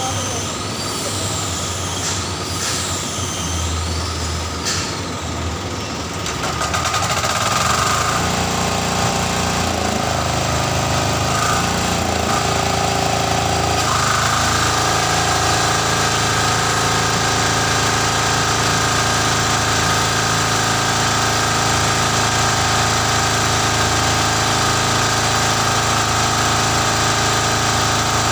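Small stationary engine driving a self-priming centrifugal water pump. It grows louder about seven seconds in and then runs steadily as the pump takes its prime and starts discharging water.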